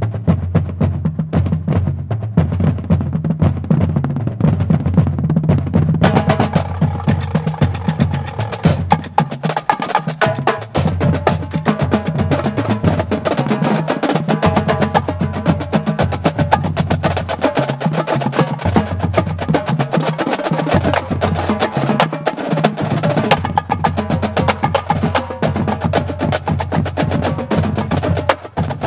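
Marching drumline playing a fast rudimental cadence with rapid stick strokes. Bass drums carry the opening, and snare drums and the rest of the line come in about six seconds in, thickening into dense, crisp rolls and accents.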